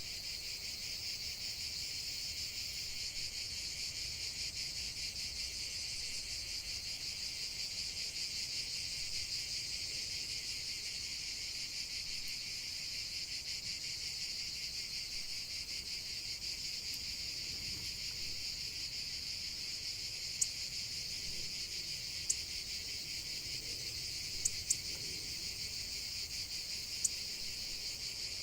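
Steady, dense high-pitched chirring of an insect chorus, with a few sharp clicks in the last third.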